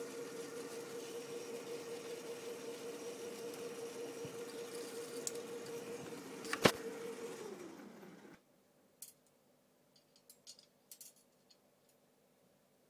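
Electric 35mm film rewinder's motor running with a steady hum; a loud click comes about two-thirds of the way through, then the hum falls in pitch as the motor spins down and stops abruptly. After that come a few light clicks of a metal film reel being handled.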